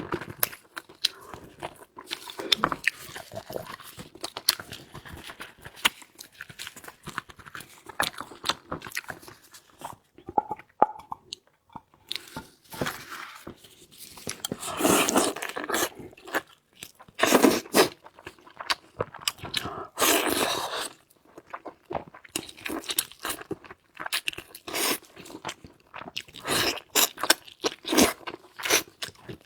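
A person biting and chewing food with crunching, in an irregular stream of small clicks and bursts, louder for stretches around the middle.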